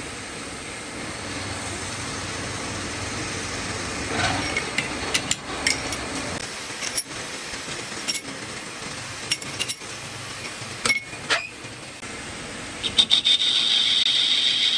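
Metal parts and tools clinking and knocking with a short ring, over the steady running of a lathe. Near the end a louder, steady hissing cut starts up.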